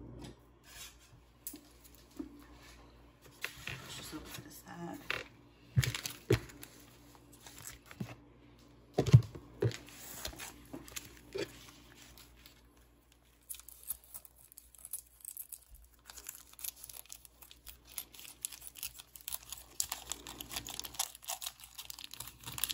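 A few scattered knocks and thumps, the loudest about nine seconds in. Then, from a little past halfway, the plastic wrapping of a pack of raw bacon crinkles and tears as it is cut open with kitchen scissors.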